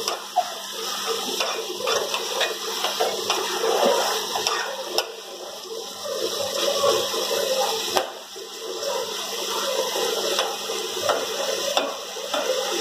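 Chicken pieces sizzling and frying in hot oil in an aluminium pot, with a steady hiss and crackle while they are stirred with a spoon.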